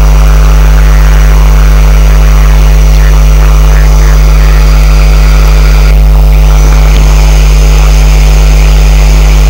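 Loud, steady electrical hum with a buzzing edge, typical of a degraded analogue TV or tape audio signal, holding one unchanging pitch.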